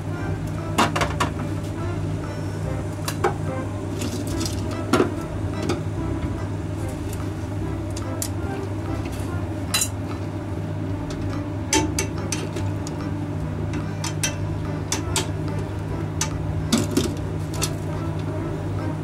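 Kitchen utensils and dishes clinking: irregular light taps and clicks, with a steady low hum underneath.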